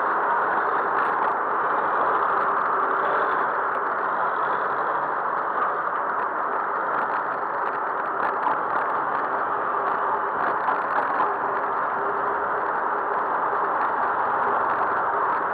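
Steady rushing noise of riding a bicycle through city traffic, with motor vehicles running nearby and a few faint clicks.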